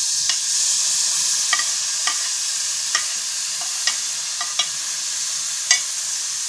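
Spiced masala sizzling in hot oil in a steel frying pan, a steady high hiss. A metal spoon stirring in the pan clinks sharply against the steel about eight times at irregular moments.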